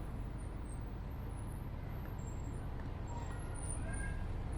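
Steady low rumble of a running vehicle, with a few faint high tones above it.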